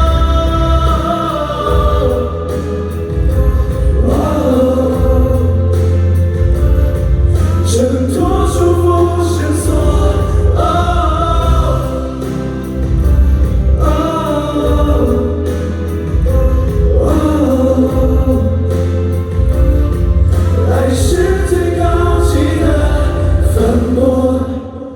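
Pop song with several voices singing over a heavy, steady bass line; the music stops near the end.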